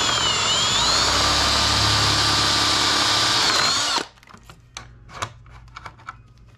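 Power drill boring a roughly 3/8-inch hole through a plastic dashboard trim piece, running at steady speed for about four seconds, then stopping suddenly. A few light clicks and knocks follow.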